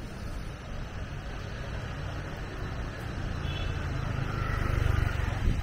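Street traffic: a motor vehicle passes close by, its low engine rumble growing louder to a peak about five seconds in, then easing off.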